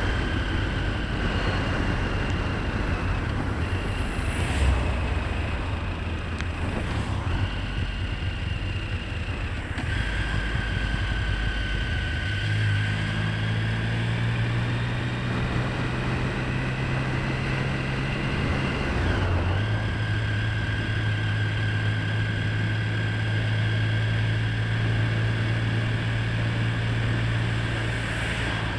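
Motorcycle engine running steadily as the bike is ridden along a road, with a rush of wind noise underneath. The engine note steps in pitch a few times.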